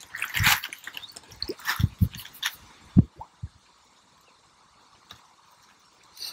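Water splashing and a wet carp sling rustling as a large carp is eased out of the sling and held in the lake water, with several dull thumps in the first half. After that it is mostly quiet, with a single click later on.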